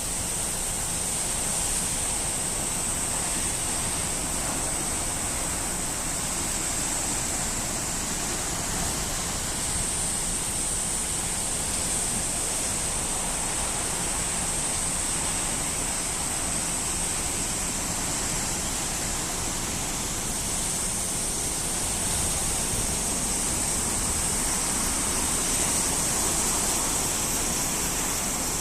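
Ocean surf from a typhoon swell, a steady unbroken roar of breaking waves, with a continuous high hiss above it that swells and fades slowly.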